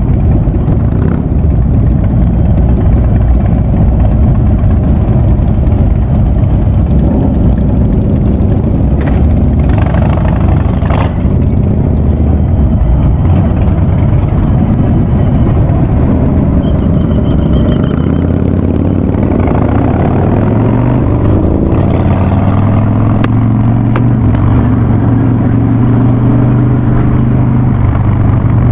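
Harley-Davidson Ultra Classic's V-twin running loud through a Vance & Hines Big Radius exhaust under way. About twenty seconds in its pitch rises as it accelerates, then holds higher.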